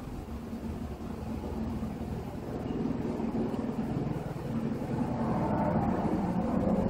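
Unexplained distant rumbling drone in the sky, like a far-off jet engine, with a low steady hum. It swells louder through the second half and eases off near the end.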